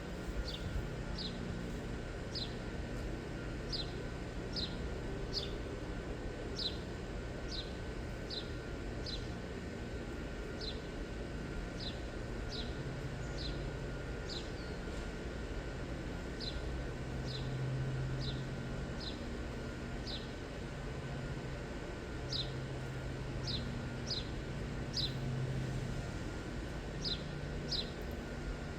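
A bird chirping over and over, short high chirps that drop in pitch, against a steady low hum that swells now and then.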